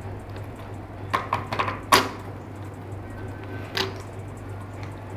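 Plastic clicks and knocks from an action-camera pivot mount and thumbscrew being fitted and tightened on a helmet mount: a quick cluster of light clicks about a second in, a sharper click near two seconds and another near four seconds, over a steady low hum.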